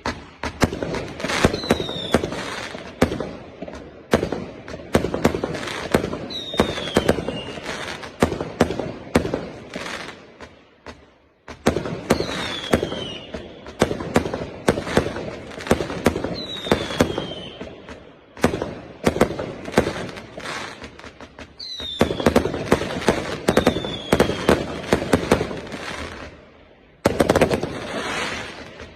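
A 399-shot 0.8-inch fireworks cake firing, a rapid run of launches and bursts in waves. There are several short falling whistles among them, and the firing dips briefly twice before picking up again.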